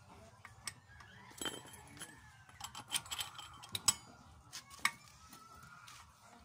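Steel socket and wrench clinking against the clutch bell nut of a Kymco scooter's CVT as the nut is tightened by hand: a run of sharp metallic clicks and clinks from about one to five seconds in.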